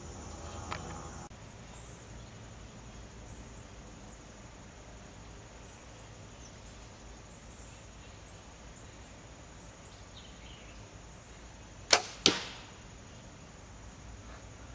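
A Bear Cruzer G2 compound bow is shot: a sharp snap as the string is released about twelve seconds in, then a second sharp hit about a third of a second later as the arrow strikes the target. The rest is a quiet outdoor background.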